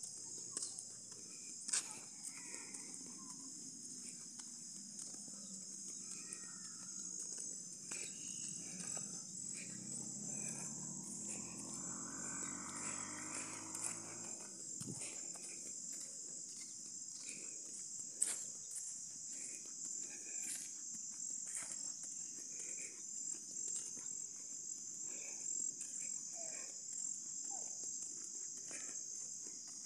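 Steady, high-pitched chorus of insects chirring in grassland. A low, rough sound swells and fades around the middle.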